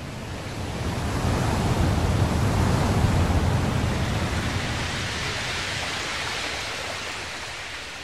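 Ocean surf: a wave rushing in, swelling to a peak about two to three seconds in, then slowly washing back out and fading.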